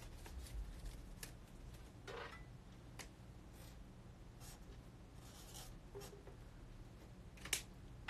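Faint rustling of a paper slip being handled, then a marker pen writing on a spiral notepad, with a few small clicks and taps.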